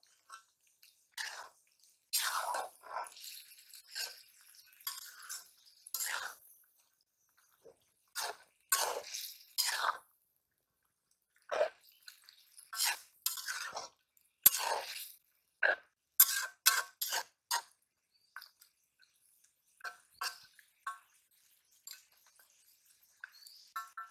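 Metal spatula scraping and clinking against a metal karahi as moong dal with fish heads is stirred, in irregular strokes with short pauses between them.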